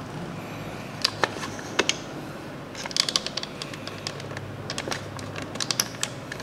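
Light plastic clicks and taps from handling a Play-Doh ice cream maker toy. A few single clicks come first, then quick clusters of clicks about halfway through and again near the end.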